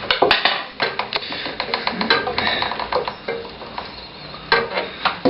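Irregular metallic clinks and knocks, several a second, from the parts of a motorcycle front wheel (wheel, spacers, axle) being handled and fitted.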